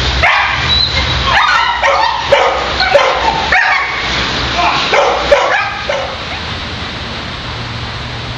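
German shepherd barking repeatedly in quick, high-pitched barks during protection training; the barking stops about six seconds in, leaving a steady low rumble.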